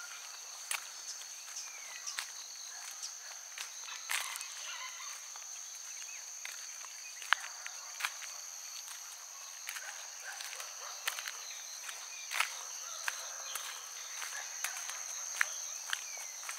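Crickets chirping in a steady high-pitched drone, with irregular footsteps on a path and a few short bird chirps.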